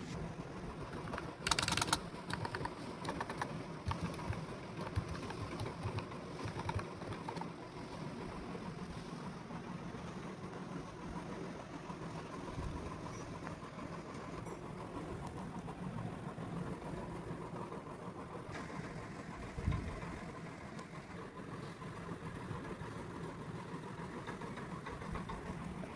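Membrane keyboard keys clicking in quick irregular taps, busiest over the first several seconds, over a steady background hum.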